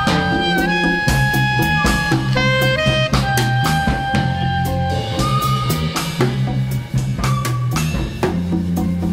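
Instrumental jazz-inflected electronic track: a drum kit beat with a steady bass line under long held melodic notes that change pitch every second or two.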